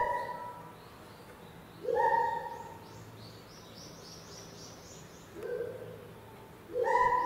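Birds calling: a loud, short call comes four times, one to three seconds apart, over faint, high-pitched chirping of a small bird.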